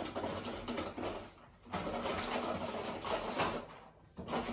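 Glass honey jar and teaspoon being handled, the lid taken off and the spoon scraping in the jar: two stretches of scratchy clatter with a short pause between them.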